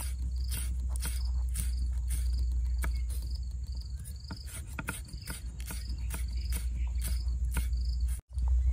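Knife chopping green chillies on a wooden cutting board: a steady run of sharp taps, about two or three a second. A repeated short, high insect chirp sounds alongside, and the sound cuts out for a moment near the end.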